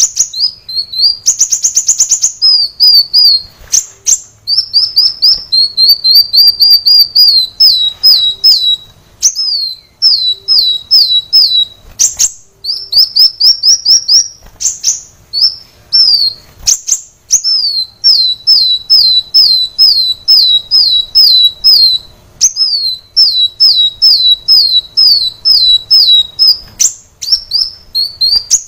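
Kolibri wulung sunbird singing: fast runs of high, sharply downslurred notes repeated almost without pause, with a brief buzzy rattle near the start.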